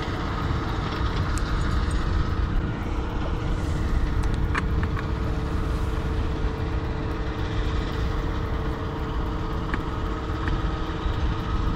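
A steady engine drone: a low rumble with a constant hum over it, and a few faint clicks around the middle.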